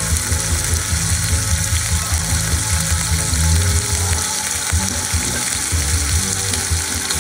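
Bacon strips frying in shallow oil in a frying pan: a steady sizzle.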